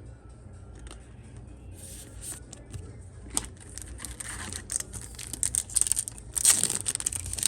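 Foil booster pack of trading cards being crinkled and torn open. Light clicks and crinkles begin about two seconds in and build to the loudest tearing and crackling near the end.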